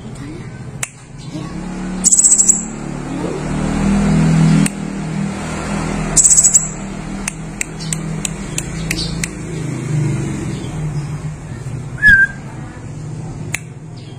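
Pentis raja, a tiny flowerpecker, giving two very high, rapid trills and then a run of sharp ticking chip notes, with a short chirp near the end. Under the calls runs a steady low rumble like a passing engine or distant voices.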